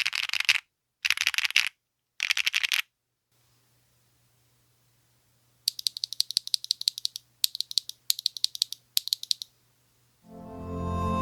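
Typing on an AL65 mechanical keyboard fitted with BSUN x XXLAB Hepburn v2 linear switches and Aifei keycaps, with no plate foam. Three short bursts of rapid keystrokes are followed by a pause, then several more bursts of clacking key presses. Music comes in near the end.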